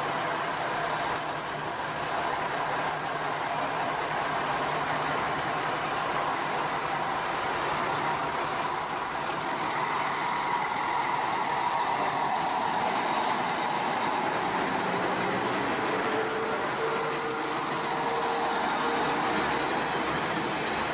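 JR Shikoku KiHa 32 diesel railcar pulling away from the platform and rolling past, its diesel engine running steadily under load as it moves off.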